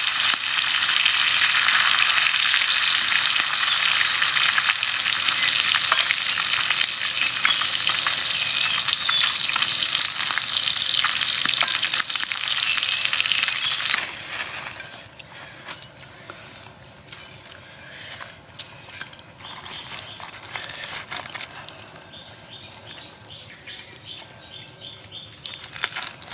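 Pig intestine frying in hot oil: a loud, dense sizzle that drops suddenly about halfway through to a much quieter sizzle with scattered pops and crackles.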